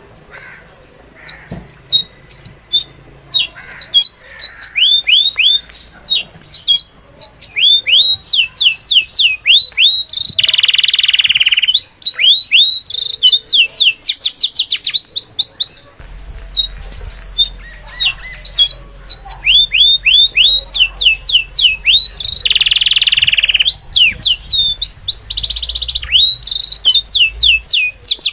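Small birds chirping in fast runs of sharp, down-slurred notes, starting about a second in, with a few short, harsh squawks mixed in.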